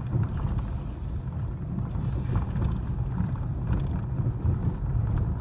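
Inside a moving car: steady low rumble of the engine and tyres on a concrete road.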